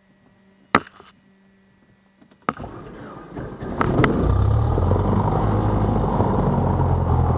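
A sharp click, then about two and a half seconds in the Cessna 172's starter cranks the propeller engine. It catches about four seconds in and settles into a loud, steady run.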